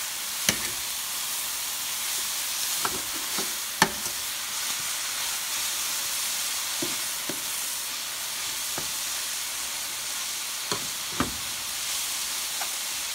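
Chopped collard greens sizzling steadily in an oiled skillet while they are stirred and turned with a metal slotted spoon. A few sharp clicks of the spoon against the pan sound through it, the loudest about four seconds in and two close together near the end.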